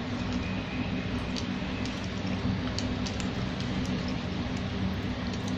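Steady low background hum, like distant traffic or an engine, with a few faint light clicks scattered through it.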